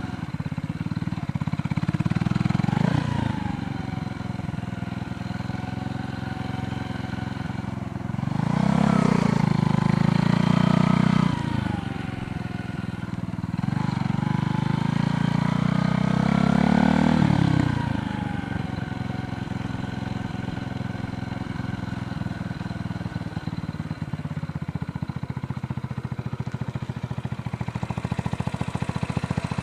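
Motor vehicles passing on a road, each engine growing louder and then dropping in pitch as it goes by. A smaller one passes about three seconds in, and two louder ones around nine to eleven and fifteen to seventeen seconds in, over a steady low background noise.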